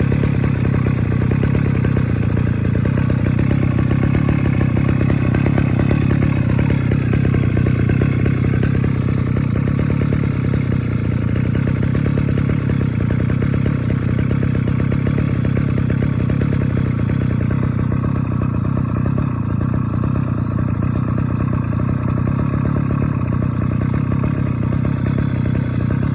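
Mitsubishi TL33 brush cutter's small two-stroke engine running steadily with a rattly, buzzing exhaust note.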